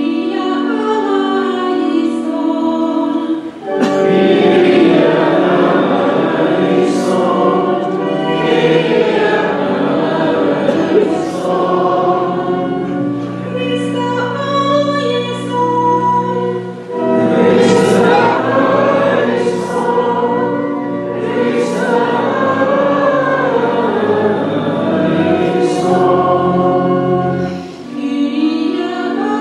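Church singing: many voices sing a hymn of the Mass together in long phrases over held organ chords, with short breaths between the lines about 4, 17 and 28 seconds in.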